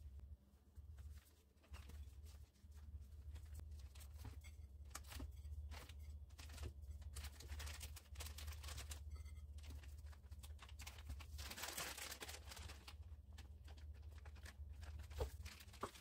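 Faint crinkling and rustling of thin plastic food bags handled with gloved hands, with scattered small clicks and a denser rustle about three-quarters of the way through, over a low steady hum.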